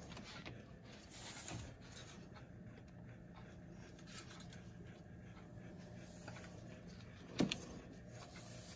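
Quiet room tone with a low steady hum and light rustling from handling, broken by one sharp knock about seven seconds in.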